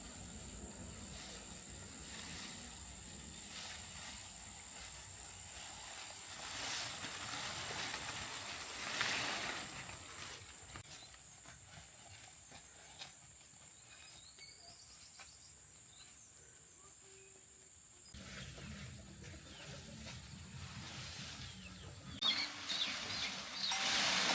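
Cricket trilling steadily at a high pitch over quiet rural background noise; about 22 seconds in the trill stops and louder, irregular rustling and tapping takes over.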